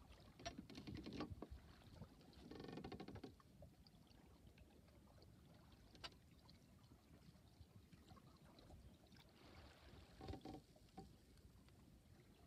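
Faint sounds of a small sailboat under way: water washing quietly along the hull, with a few brief rustles near the start and again about ten seconds in.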